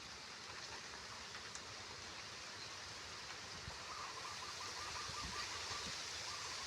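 Steady outdoor hiss with a faint, rapid trilling call that starts about four seconds in and lasts about two seconds.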